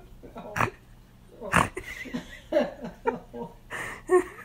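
A woman's voice in short laughs and vocal sounds, broken by several breathy bursts, as a tight compression sock is worked onto a foot.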